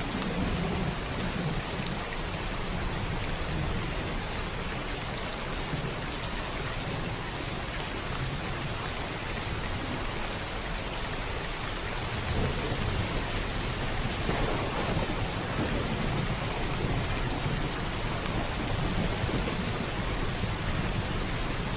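Heavy steady rain drumming on a roof, with low rolling thunder rumbling underneath that swells about halfway through.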